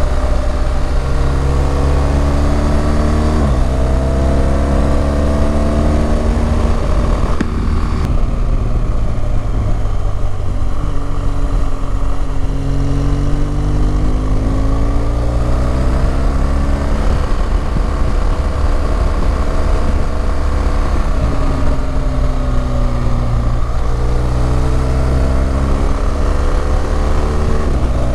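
BMW R1200GS Adventure's boxer-twin engine running under way, its pitch rising and falling with the throttle, with a sudden drop about three and a half seconds in and again near the end, as on an upshift. Wind rushes over a helmet-mounted microphone throughout.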